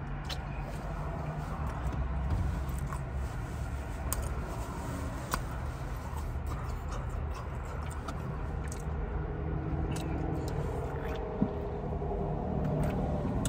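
Quiet chewing and small mouth clicks of someone eating stuffed pizza, over a steady low hum inside a car. Near the end he sips from a soda can.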